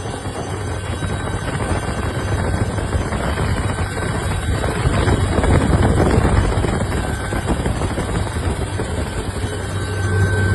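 Helicopter running close by: a steady low rotor beat over the engine's broad rushing noise.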